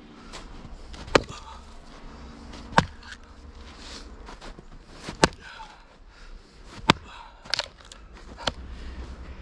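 A short-handled axe chopping and splitting firewood on a chopping block: about six sharp chops, roughly one every second and a half, two of them close together near the end.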